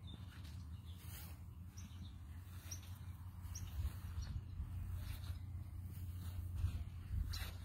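Outdoor ambience: a steady low rumble with a few faint, short bird chirps scattered through it and some light knocks.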